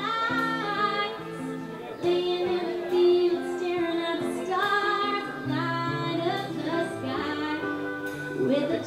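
Live band playing a song, with a sung lead vocal over guitar and bass.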